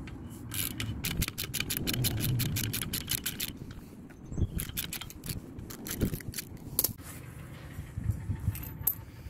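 Socket ratchet clicking rapidly for about three seconds as the 13 mm bolt holding the prop-shaft anode on a Mercury Bravo 3 outdrive is unscrewed. This is followed by a few separate clicks and knocks as the anode comes loose.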